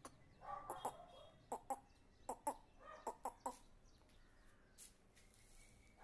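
Aseel rooster clucking: a run of short, sharp clucks, most of them in the first three and a half seconds, then it goes quiet.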